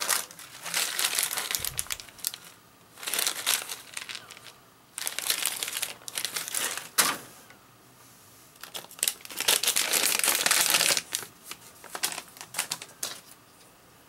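Crinkling in five bursts of one to two seconds each, with a sharp click about seven seconds in.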